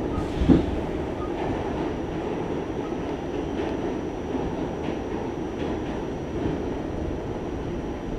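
New York City subway N train running on the rails: a steady low rumble of wheels and car, with one sharp clunk about half a second in and a few faint clicks after.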